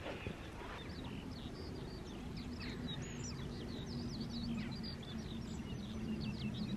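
Birdsong: a small bird's rapid, high chirps repeating over soft outdoor noise, with a faint steady low hum underneath.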